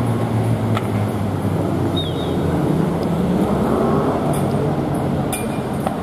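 Truck engine running amid steady street traffic noise. Its low hum eases about two seconds in, and a few short sharp clanks come through.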